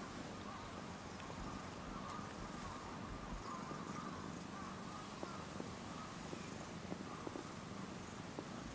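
Cats eating treats off the ground at close range: faint scattered chewing clicks over a steady low background.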